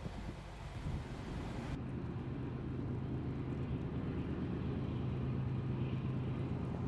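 Outdoor vehicle engine noise: a low, steady engine hum under a haze of wind and traffic noise. The hiss drops off abruptly about two seconds in, and the hum then grows gradually louder.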